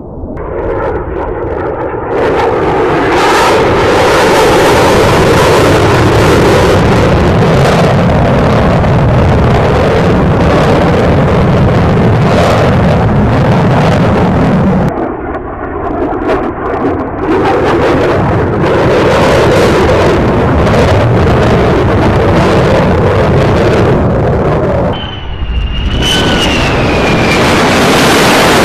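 Fighter jet engines running loud, a thick steady noise that drops briefly twice, with a high turbine whistle that falls slightly in pitch near the end.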